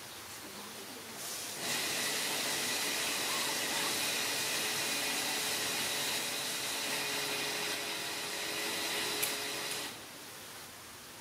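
A steady machine whir with a faint whine, like a small electric motor or blower running. It switches on abruptly under two seconds in and cuts off about a second before the end.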